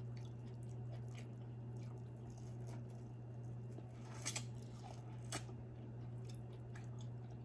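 Faint, wet chewing and mouth sounds of a person eating, with two short sharp smacks about four and five seconds in, over a steady low hum.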